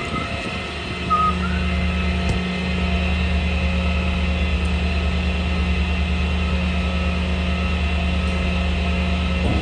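Tow truck engine running steadily, a low even hum, with a couple of brief high squeals in the first two seconds.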